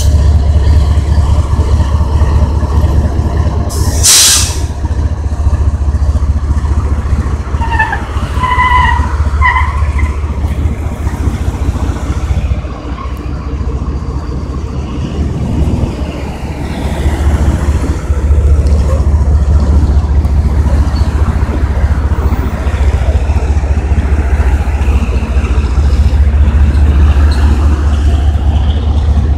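Diesel freight train passing close by: Kansas City Southern de México locomotives running with a steady low rumble, then covered steel-coil freight cars rolling past. A brief hiss sounds about four seconds in, and a few short high beeps follow around eight to ten seconds in.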